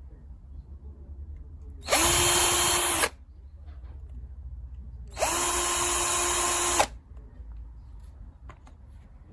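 KIMO 20V cordless drill driver's motor run twice in short bursts: each time it spins up quickly to a steady whine and then stops. The first run lasts about a second and the second about a second and a half, slightly quieter.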